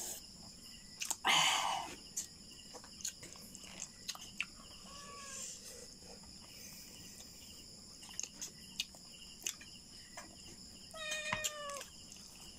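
Eating sounds of fried buffalo chicken eaten with the fingers: scattered small lip smacks and clicks, with a short breathy rush about a second and a half in. Near the end comes a short, high animal call about a second long, dropping slightly in pitch, over a faint steady high whine.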